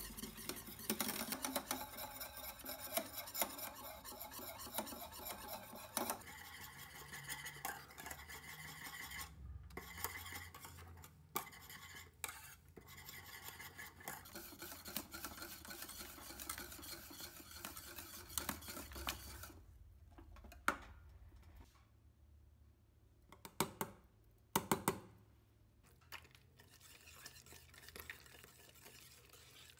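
Wire whisk stirring and scraping around a stainless steel saucepan of thickening pastry cream. The steady rasping stops about two-thirds of the way through, and a few sharp metal clinks and knocks follow.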